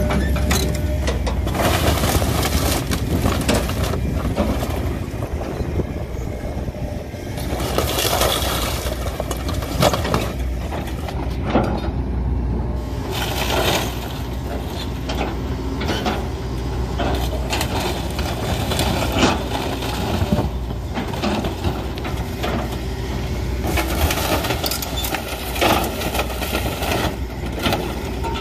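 Excavator demolishing a motorhome: its diesel engine runs steadily underneath while the bucket crushes the RV's wood framing and sheet-metal body, which cracks, crunches and tears, with sharp loud cracks several times.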